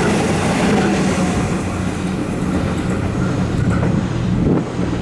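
Suburban electric multiple-unit train pulling away along the platform, its wheels and motors running with a steady low hum that dies away toward the end as the last car clears.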